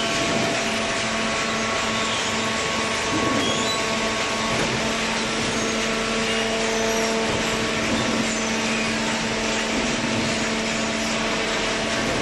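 Hydraulic waste-paper baling press running: a steady, loud mechanical hum with constant tones over a noisy machine din.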